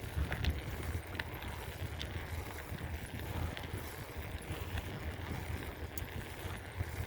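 Bicycle being ridden: a steady low rumble with scattered light clicks and rattles from the bike.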